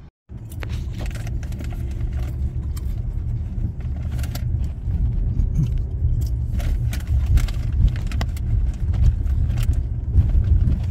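A car on the move, heard from inside: a steady low rumble of road and engine noise with scattered light clicks and rattles.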